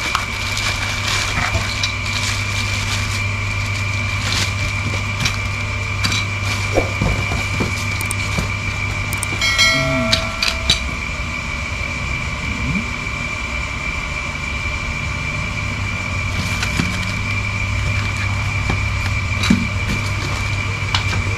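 Packaging being handled while a servo motor is unboxed: scattered crackles, rustles and knocks over a steady background hum. A short pitched tone sounds about halfway through.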